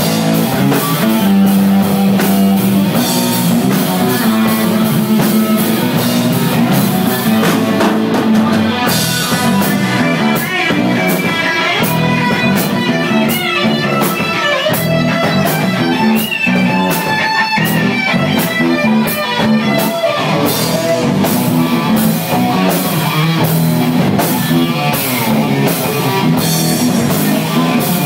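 Live rock band playing loudly: electric guitar over a drum kit with steady cymbal hits, and a singer on microphone through the middle part.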